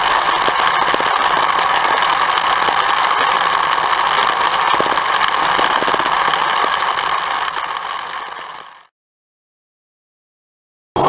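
Line trimmer running at steady speed while cutting grass. The motor note fades out near the end.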